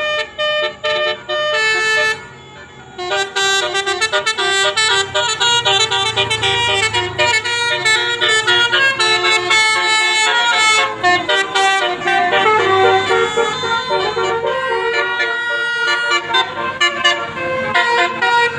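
Basuri 'telolet' multi-tone bus horn playing a melody of short stepped notes, pausing briefly about two seconds in, then running on in quick, changing notes.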